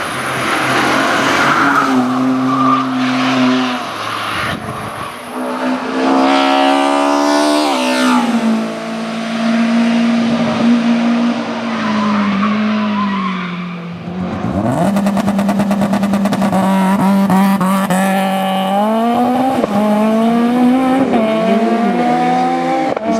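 Hillclimb race car engines at full throttle. The pitch holds steady for stretches, then climbs sharply and falls back with each gear change. A rapid crackle rides on the engine from about 15 seconds in.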